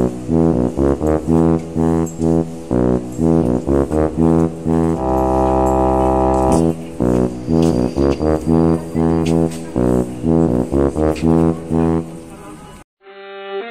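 Trombone playing a rapid run of short separate notes, with one long held note in the middle, then more short notes before cutting off suddenly near the end; a short bowed-string phrase follows.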